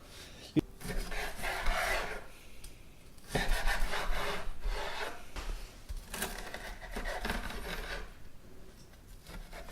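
A crispy kimchi pancake being cut on a cutting board: the blade rasps and scrapes through the crust in three stretches with short pauses between, after a single click near the start.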